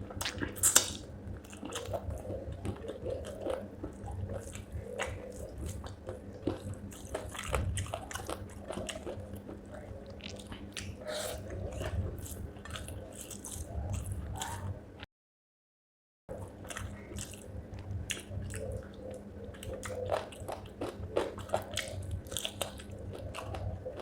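A person biting and chewing spicy chicken feet with rice close to the microphone, with many small wet crunches and clicks. The sound cuts out completely for about a second midway through.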